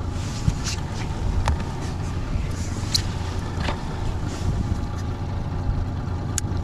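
Steady low hum of a Honda 30 hp four-stroke outboard running at trolling speed, with a few sharp clicks of scissors and pliers as a leader is cut from a lure.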